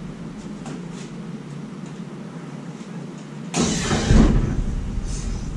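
A sudden heavy clunk and low rumble about three and a half seconds in, lasting around a second and a half, as one side of a 5,000-pound Monarch lathe is let down off the gantry crane's hydraulic long-ram jacks onto the floor. A low steady hum runs underneath.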